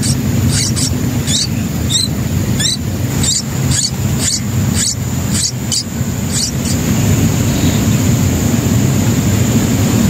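Nestlings begging with short, high squeaky calls, about two a second, which stop about two-thirds of the way through. A steady low rumble runs underneath and is the loudest sound.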